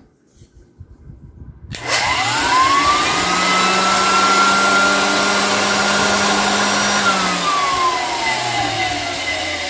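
1923 GE Premier Junior vacuum cleaner's motor on its first run after its bearings were packed with grease. It starts about two seconds in with a quickly rising whine and runs steadily for about five seconds over a low hum. It is then switched off and winds down with a steadily falling whine; to its restorer it sounds good.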